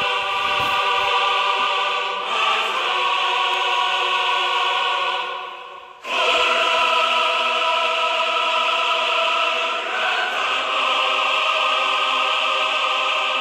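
Background music of long, held choral chords that shift every few seconds; it fades out around five and a half seconds in and starts again at six.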